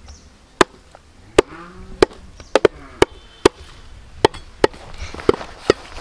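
Steel cleaver chopping goat tripe on a wooden log chopping block: about ten sharp chops at an uneven pace, a couple coming in quick pairs.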